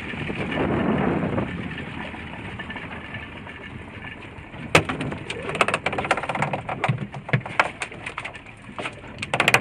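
Small wooden fishing boat with a line being hauled in by hand over the gunwale, under steady water noise. From about five seconds in come many sharp, irregular knocks and clatters against the boat.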